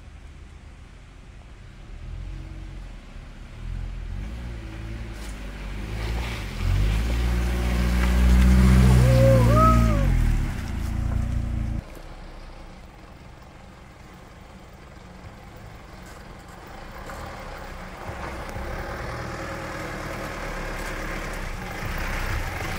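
Four-wheel-drive SUV engine labouring up a muddy, rutted dirt track, its pitch rising and falling with the throttle as it nears and growing loud, then dropping off abruptly about twelve seconds in. A quieter engine then builds again as a silver Mitsubishi Pajero climbs toward the camera. A couple of short high squeaks sound about nine seconds in.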